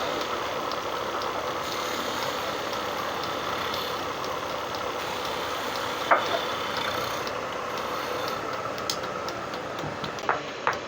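Steady mechanical running noise with a faint regular ticking, broken by a sharp clank about six seconds in and two more near the end.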